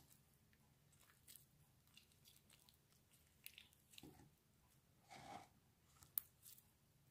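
Faint squishing and small crackling pops of butter slime being squeezed and stretched by hand, with two louder squelches about four and five seconds in and a sharp click just after six seconds.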